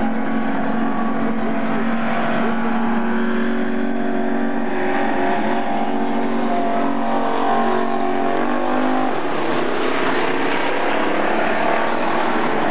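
Engines of a pack of street stock race cars running on a dirt oval track, a steady drone that shifts in pitch about two-thirds of the way through and turns rougher near the end.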